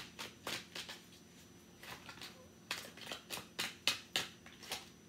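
A deck of tarot cards being shuffled by hand: a string of short, irregular snaps and clicks, about a dozen in five seconds.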